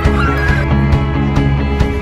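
Background music with a steady beat, with a short wavering high glide right at the start.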